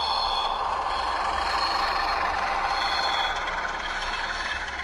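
H0-scale model of a CFR 060-DA diesel-electric locomotive with a sound decoder playing its diesel engine running steadily.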